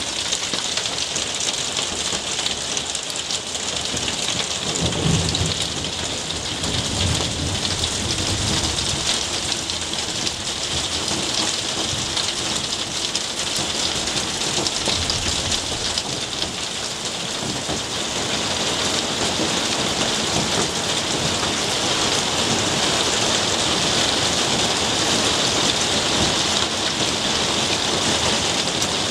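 Heavy rain falling steadily on garden foliage, pots and paving, growing a little heavier after about eighteen seconds. A low rumble comes in about five seconds in and lasts a few seconds.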